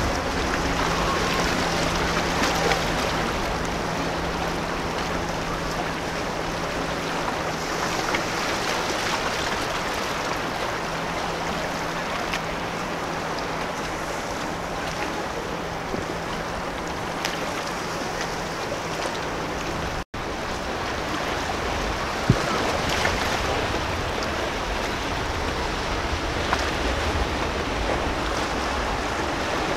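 Water rushing and lapping in an inlet as a motor yacht idles past, with wind on the microphone. A steady low engine hum runs under it and stops abruptly about twenty seconds in.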